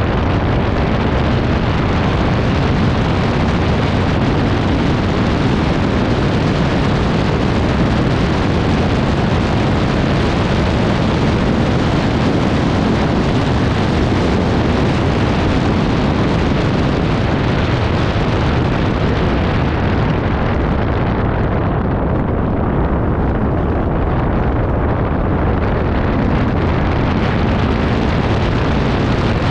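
ATV engine running under way, mixed with heavy wind buffeting on the microphone. The high hiss dulls for a few seconds about two-thirds of the way through.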